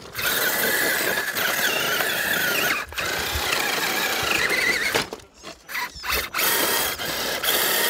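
Electric motor and geared drivetrain of a 1/10-scale RC 4x4 trail truck whining under throttle in bursts, the pitch wavering as the load changes. It cuts out for about a second a little past halfway, then comes back.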